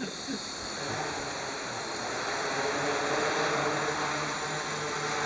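Small radio-controlled quadcopter's electric motors and propellers whirring steadily, with a low hum joining about a second in and the whir growing a little louder.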